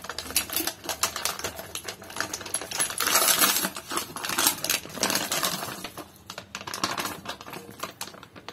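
Plastic food packaging crinkling and rustling in rapid irregular crackles as a sealed pack of raw chicken is torn open and handled over a steel bowl, loudest about three seconds in.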